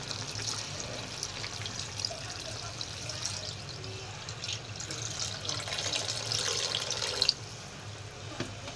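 Thick coconut milk pouring in a steady stream from a bowl into a wok of cassava leaves simmering in coconut broth, a splashing trickle that grows louder and then stops suddenly about seven seconds in.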